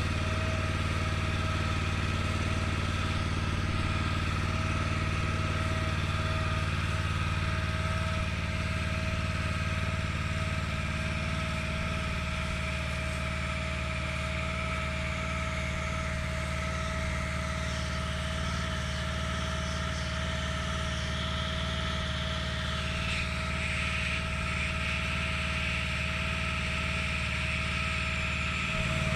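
Petrol pressure washer's engine running steadily at low revs for a gentle rinse, with the hiss of the water jet spraying onto stone paving. The hiss grows a little stronger about two-thirds of the way through.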